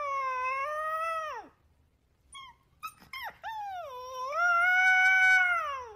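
Husky puppy howling: one long wavering howl that falls away about a second and a half in, a few short yips, then a second long howl that dips, rises and tails off near the end.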